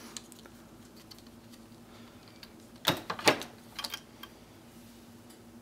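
Small hard clicks of a plastic flashlight-holder adapter and its mount being handled and pressed onto a rifle's A2 front sight: two sharp clicks about three seconds in, then a few lighter ticks, over a faint steady hum.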